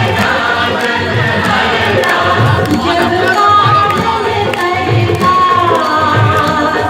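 Loud Indian devotional song played over a sound system: singing over a steady low drum beat.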